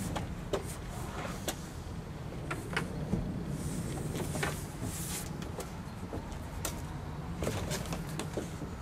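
Plastic kayak hull knocking and scraping as it is lifted and pushed up against a truck's roof rack: scattered light clicks and knocks, with a stretch of scraping a few seconds in, over a steady low hum.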